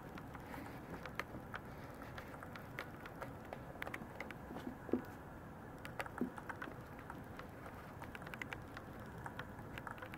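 Light, irregular clicking and pattering of Maltese puppies' claws on a plastic mesh puppy tray, with a soft bump about five seconds in and another about six seconds in.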